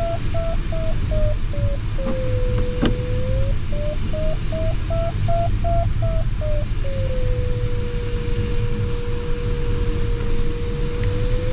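Sailplane variometer in the AS33's cockpit: quick beeps, about three a second, as the glider climbs in a thermal, twice giving way to a steady lower tone as the lift fades, over the steady rush of airflow in the cockpit. One sharp click about three seconds in.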